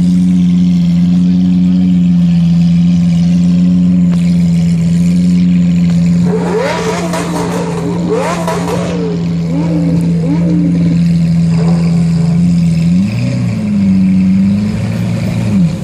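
High-performance car engine idling with a steady drone. A run of quick rev blips comes about 6 to 10 seconds in, and the engine is blipped twice more near the end.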